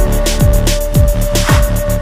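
Electronic background music with a steady beat, bass hits that drop in pitch, and a held note.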